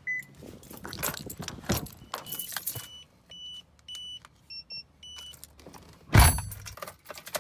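Keys and handling clicks in a pickup truck cab, a run of short high electronic beeps, then the truck's engine starting with a loud burst about six seconds in.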